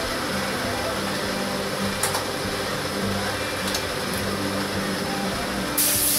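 Background music over a steady noise, with a couple of light clicks; near the end a compressed-air paint spray gun suddenly starts hissing loudly.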